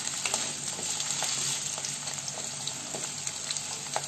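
Cubed potatoes sizzling in mustard oil in an iron kadhai on medium heat: a steady frying hiss dotted with small crackles. A wooden spatula stirs them at first, with light scrapes against the pan.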